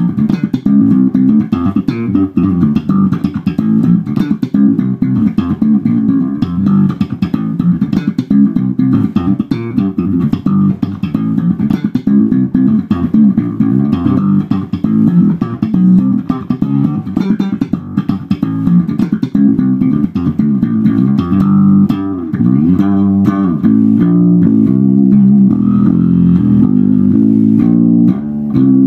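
Warwick electric bass guitar played solo: a busy, funky line of quick plucked notes with sharp attacks, some notes sliding in pitch a little over two thirds of the way through.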